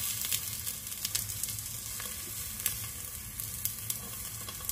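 Egg frying in a small rectangular nonstick egg-roll pan: a steady soft sizzle with scattered light crackles, as the underside of the white crisps over low heat.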